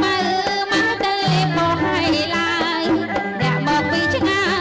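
Background music: a folk-style song with a wavering, ornamented sung melody over instruments and a steady beat.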